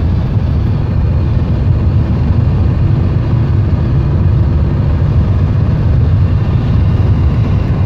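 Cabin noise of a BMW E38 7 Series turbodiesel at high motorway speed, about 150–160 km/h and 3,000 rpm. Engine, tyre and wind noise blend into one steady low rumble with a hiss over it.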